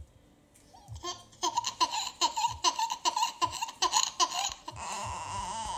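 A toddler laughing: a run of short, quick laugh bursts, about three a second, starting a little over a second in, turning near the end into one long high squeal.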